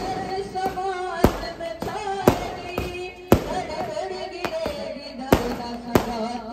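Firecrackers going off in single sharp bangs at uneven intervals, about five of them, over a voice singing Urdu devotional verse in praise of Hazrat Abbas.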